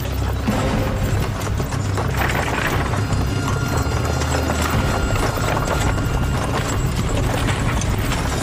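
Hoofbeats of a pair of ponies galloping on grass as they pull a scurry carriage at speed, over background music.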